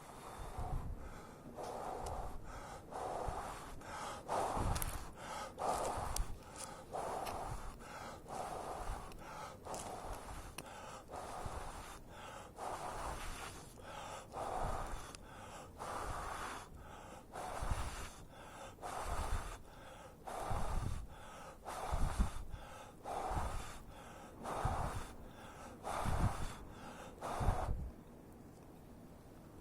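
A person blowing repeatedly onto embers to coax them into flame, in steady breathy puffs about one a second, with some breaths thumping on the microphone; the blowing stops near the end.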